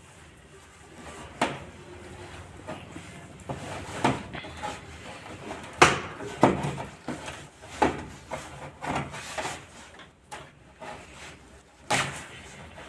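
Hand-handling sounds from a washing machine repair: a series of sharp clicks and knocks a second or two apart, with scuffing between them.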